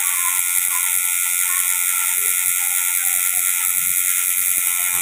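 Electric tattoo machine buzzing steadily with a high-pitched tone while its needle works into the skin of a forearm.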